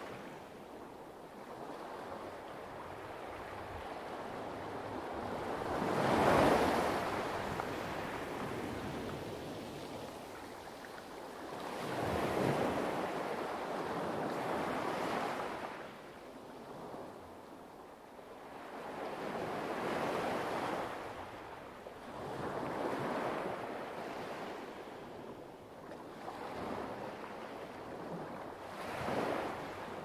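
Light waves washing onto a pebble beach, the surf swelling and falling back every few seconds, loudest about six seconds in.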